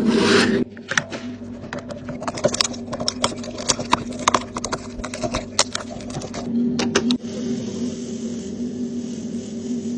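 Many small sharp clicks and taps, the sound of hand work on a phone under repair, over a steady machine hum, with a brief loud hiss right at the start.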